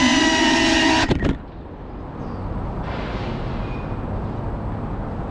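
Motors and ducted propellers of a GEPRC CineLog35 cinewhoop, heard loud from its on-board camera. They whine steadily, then cut off with a couple of clicks about a second in as the quad lands and disarms. A steady low outdoor rumble follows.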